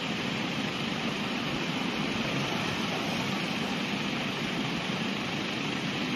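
Road traffic moving through standing floodwater on a wet road: a steady rush of engines and tyres in the water.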